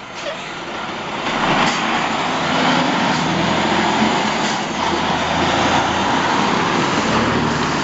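Tractor-trailer pulling out: steady diesel engine and road noise that swells about a second in and then holds.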